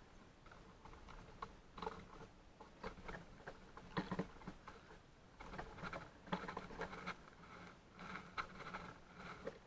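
Small birds pecking and shuffling at seed on a feeder close to the microphone: irregular light taps and scratches, coming thicker in the second half.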